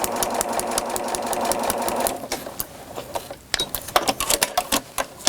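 Sewing machine stitching steadily at a fast, even rate, stopping about two seconds in; scattered clicks and light rustling follow as the fabric and paper are handled.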